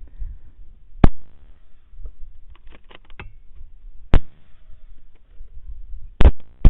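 Rifle shots: four sharp reports, one about a second in, one around four seconds in, and two close together near the end, with faint clicks between them.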